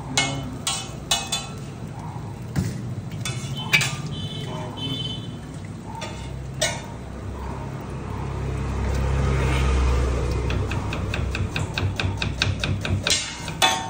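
Knife chopping onion on a wooden cutting board. Scattered knocks come first, then fast, even chopping at about four or five strokes a second near the end. A low rumble swells and fades in the middle.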